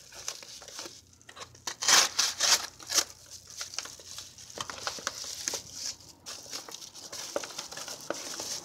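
Folding knife cutting and sawing into a cardboard package, with crinkling and tearing of the packaging in a run of uneven scratchy strokes, the loudest about two to three seconds in.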